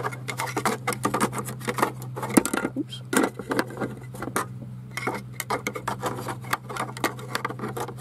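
Irregular plastic clicks, taps and rattles from hands handling a truck's overhead console panel while fitting a light-bar switch and its wiring connector.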